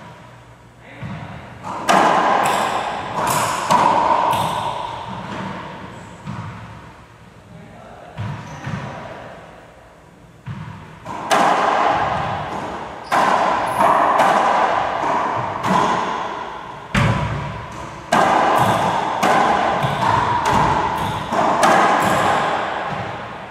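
Racquetball rally: repeated sharp smacks of racquets hitting the ball and the ball striking the court walls and floor, each ringing with echo in the enclosed court. A short run of hits about two seconds in, then a longer rally from about eleven seconds on.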